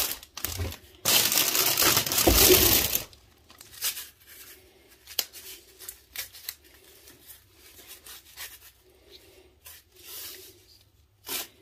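Wooden stir stick working Bondo body filler into dry wood wool (excelsior) on a wooden board. Loud scraping and crackling for the first three seconds, then softer scattered scrapes and ticks.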